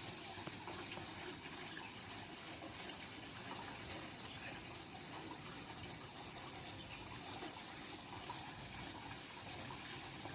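Koi pond waterfall running, water splashing and trickling steadily into the pond.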